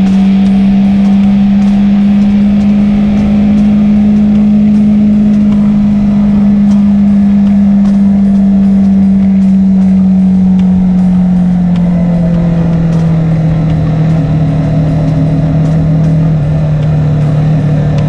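Suzuki SV650's V-twin engine running at a steady cruise, its note dropping a little about twelve seconds in as the bike slows. Background music with a steady beat plays over it.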